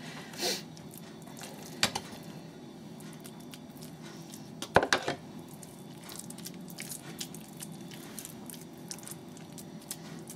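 Kitchen handling sounds while a mushroom and rice burger patty is shaped by hand: faint ticks and rustles, with a sharp knock about two seconds in and a louder double knock about five seconds in.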